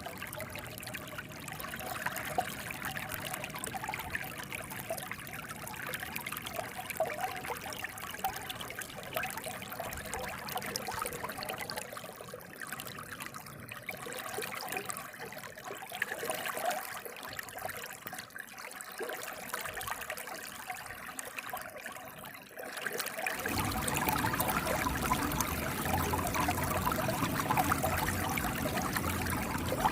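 Flowing water trickling and splashing steadily. About three-quarters of the way through, the flow suddenly becomes louder and fuller.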